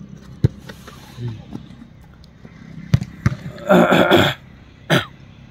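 Sharp thuds of a football being kicked, four in all, spread through the stretch, with a loud short burst of voice a little after the middle.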